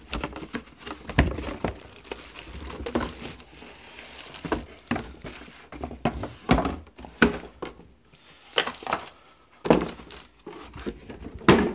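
Packaging being handled: a cardboard box with molded-pulp inserts and a plastic-bagged metal safe are pulled apart and set down on a wooden desk, giving scattered thumps and knocks with brief rustling in between.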